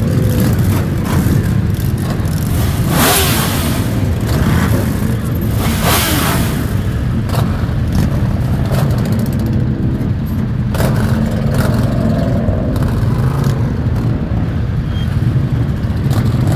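Many motorcycle engines running close by as a column of bikes rides slowly past, with engines revving up briefly about three and six seconds in.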